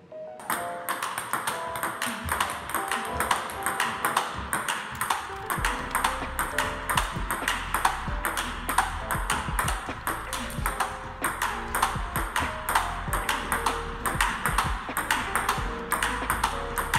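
Table tennis rally: a ball clicking on rubber paddles and bouncing on the table, about four to five sharp clicks a second in a steady back-and-forth of backhand pushes, over background music.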